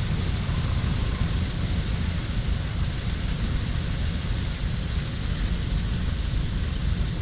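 Light taildragger airplane's engine running at low power during the rollout on the runway after landing, heard from inside the cockpit as a steady low rumble with wind and rolling noise.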